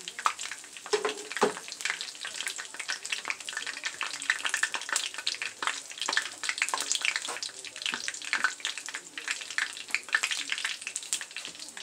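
Buffalo chicken egg rolls deep-frying in hot oil: a steady, dense sizzling crackle of many small pops.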